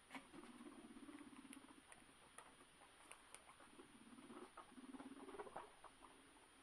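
Guinea pigs scurrying, with faint pattering and clicking, and twice a low pulsing buzz of about a second and a half each, typical of a guinea pig rumbling.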